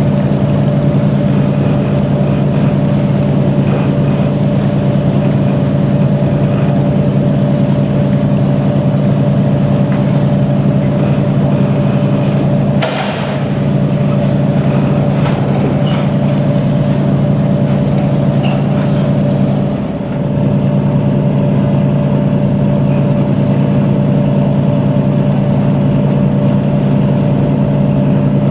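A large engine running with a steady low drone, a fixed low hum and a higher whine above it. The drone dips briefly twice, about 13 and 20 seconds in.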